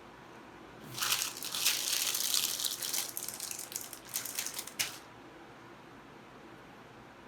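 Plastic cable tie being pulled tight through its ratchet: a rattling zip that starts about a second in and lasts about four seconds, ending in a few separate pulls.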